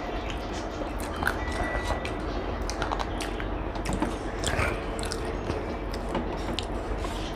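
A person chewing and biting food, with scattered short crunchy clicks, over a steady low background rumble.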